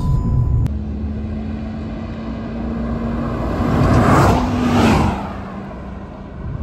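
Two Hyundai Verna sedans, a 1.5 diesel and a 1.5 petrol, passing at speed one after the other about four seconds in. The engine and tyre noise swells as each goes by and falls away afterwards.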